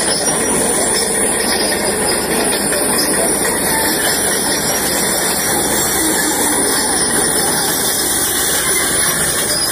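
Hydraulic excavators working close by: engines running with a loud, steady hiss.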